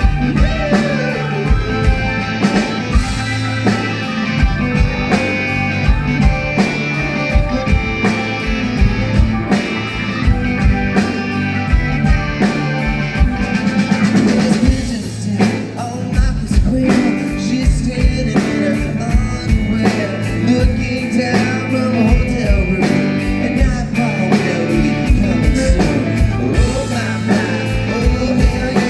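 Live pop-rock band playing through a PA with a steady drum beat, electric guitar and a singing voice, with a short dip in the playing about halfway through.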